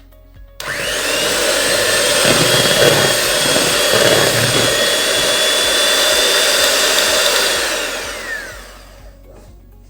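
Electric hand mixer whipping heavy cream with icing sugar toward stiff peaks. It starts about half a second in and runs steadily with a high whine, then winds down near the end, its whine falling as it stops.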